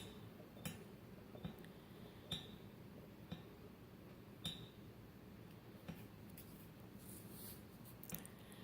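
Faint metallic clicks with a short ring, coming further and further apart, as the hand-spun chopper rotor of a tornado siren motor slows to a stop.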